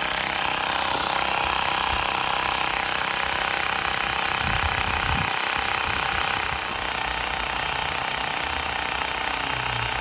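Cordless electric bike pump running steadily as it pumps air into a plastic water bottle, with the pressure stuck at about 42 psi; the pump can get no more pressure in, which the owner takes for a leak in the bottle.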